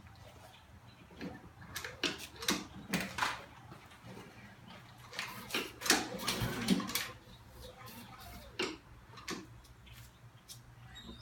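Honda HRR216 lawn mower's recoil starter being pulled in a few short, uneven tugs, with the cord and the cranking engine rattling and clicking. The engine does not catch; the owner puts the trouble down to a completely cold engine.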